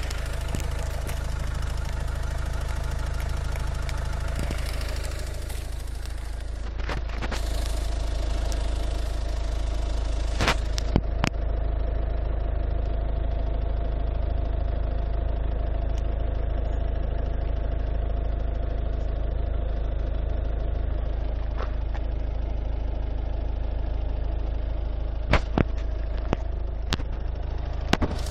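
Ford Focus II's 1.6 TDCi four-cylinder turbodiesel idling steadily, with a few sharp clicks near the middle and near the end.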